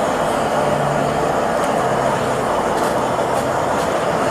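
A metal-melting furnace's burner running steadily with an even rushing noise while bronze melts in the crucible, with a few faint ticks about two to four seconds in.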